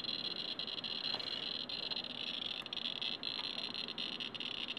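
Radiation Alert Inspector EXP Geiger counter clicking so fast that the counts run together into a steady high-pitched crackle, with a few louder clicks standing out. Its probe is held to a uranium ore sample carrying gummite and carnotite, and the count is running at about 5,000–6,000 counts per minute.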